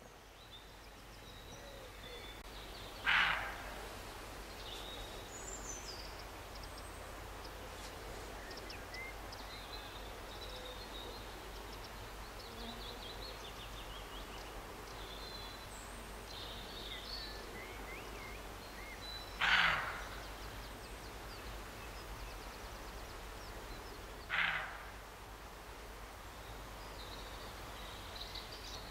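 Roe deer barking: three short, loud barks, the first about three seconds in and two more close together near the end.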